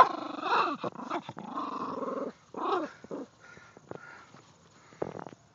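Miniature pinscher growling in drawn-out bouts, several in the first three seconds, as she digs after a mouse she believes is under the fence. A sharp thump right at the start is the loudest sound, with a short knock near the end.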